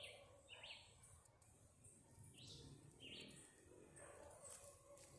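Faint bird calls: short high chirps in pairs, repeating about every two and a half seconds.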